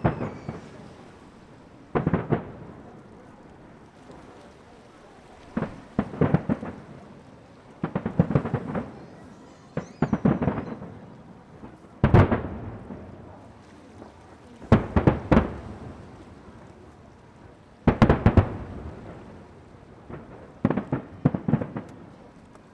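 Aerial fireworks shells bursting in a repeated series: deep booms every one to three seconds, often in quick pairs, some trailing off in crackles.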